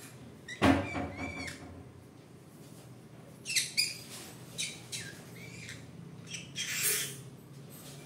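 Green-cheeked conure giving a string of short chirps and squawks, about six in all, the loudest about a second in.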